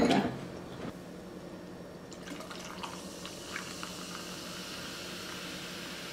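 Cola poured from a can over ice into a glass, starting about two seconds in, with a few light clinks, then the soda fizzing steadily as the foam rises in the glass.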